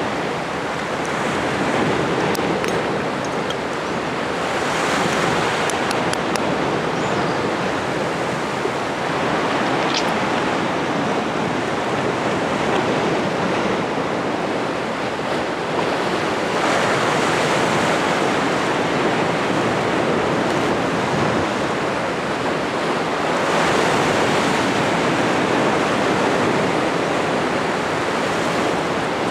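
Sea surf washing onto the shore in slow surges that rise and fall every several seconds, with wind buffeting the microphone.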